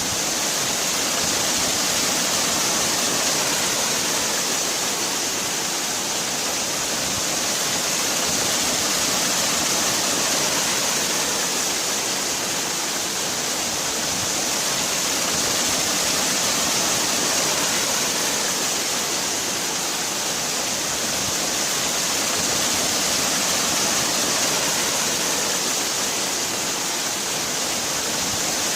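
Waterfall: a steady rush of falling water, even and hissy, swelling and easing gently every several seconds.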